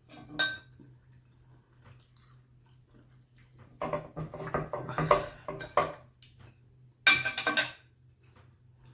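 Cutlery clinking and scraping against a plate: a short click just after the start, about two seconds of clatter from about four seconds in, and a brief, sharper clatter near the end.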